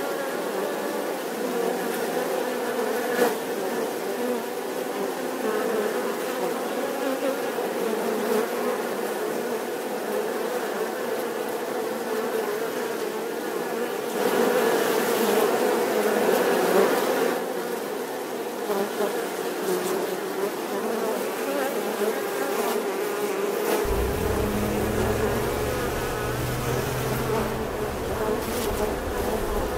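Many bees buzzing together in a steady, wavering drone, louder for a few seconds around the middle. A low rumble joins about three-quarters of the way through.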